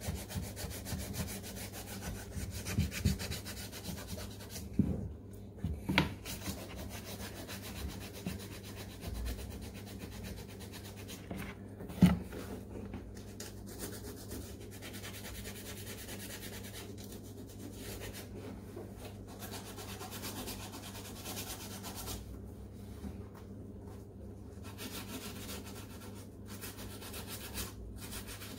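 Sandpaper rubbing back and forth over the leather upper of a Nike SF Air Force 1 by hand, scuffing the surface to prepare it for paint. A few knocks come through, the loudest about twelve seconds in.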